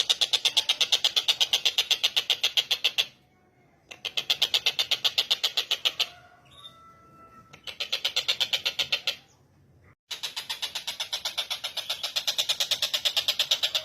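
Tengkek buto, a kingfisher, giving a fast rattling chatter of about nine notes a second, in four bouts of two to three seconds with short natural pauses between them.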